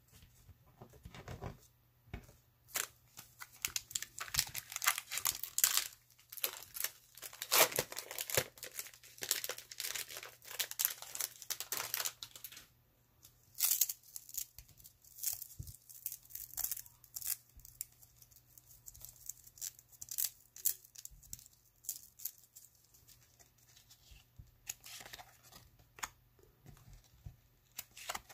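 A pack of 1992 Fleer Ultra Series 2 baseball cards being torn open, the wrapper tearing and crinkling in a dense run for the first dozen seconds. After that come softer, scattered rustles and clicks of the cards being handled, with one more short crinkle near the end.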